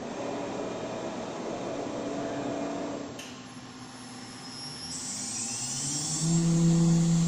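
Motionmaster 5-axis CNC router running through its axis moves with no cut: its drives whine as the head travels and tilts, the pitch shifting with each move. A rising whine comes about five seconds in, then a louder steady hum takes over near the end.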